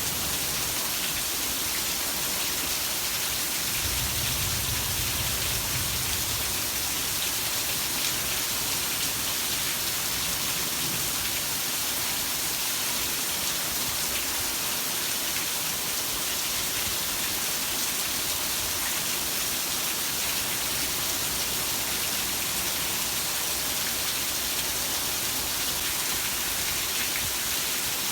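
Heavy rain falling steadily, a dense even hiss. About four seconds in, a brief low rumble rises under it for two seconds or so.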